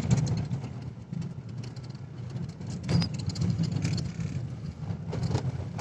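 Car interior noise while driving on a rough dirt road: a steady low engine and tyre rumble, with a couple of sharp knocks from bumps, one about halfway through and one near the end.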